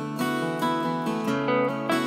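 Background music of plucked guitar notes.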